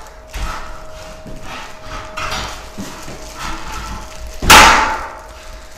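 Steel beams of a boltless metal shelving unit being knocked into their uprights: a few light knocks, then one loud metallic bang about four and a half seconds in.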